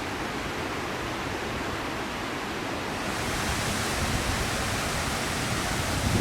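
Waterfall: the steady rush of falling water. About three seconds in the rush turns brighter and hissier and a little louder.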